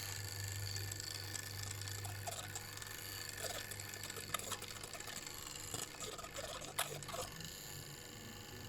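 An egg-white slime mixture being stirred in a bowl: soft wet sloshing with scattered small clicks, over a steady low hum.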